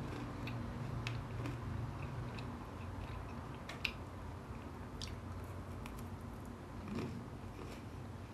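Chewing and biting a crunchy homemade cookie: irregular crisp crunches and mouth sounds, one crunch louder a little before halfway. The cookie is crunchier than its baker expected.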